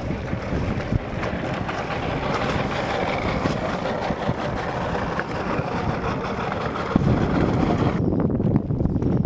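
Wind buffeting the microphone over steady water and boat noise on open water. Near the end the high hiss falls away and a deeper rumble takes over.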